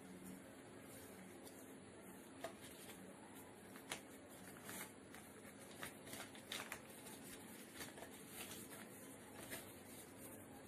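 Sheet of origami paper rustling and crackling as it is folded and creased by hand, a scatter of short crackles over a faint steady hiss.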